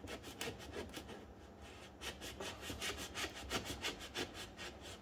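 Serrated kitchen knife sawing back and forth through the clear seal sticker on a cardboard box, in quick rasping strokes several a second, with a brief pause about two seconds in.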